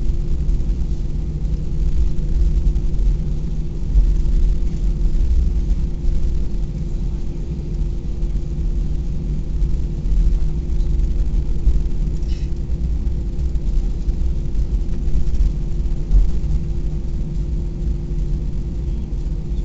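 Airbus A320 cabin noise as the airliner rolls along the ground after landing: a steady low rumble of engines and wheels on the pavement, with a constant hum over it.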